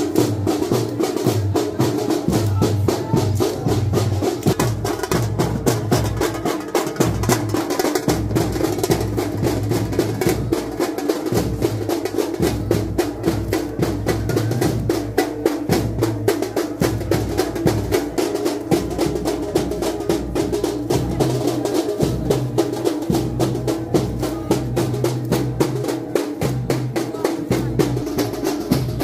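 Procession drums beating a fast, unbroken rhythm of sharp strikes.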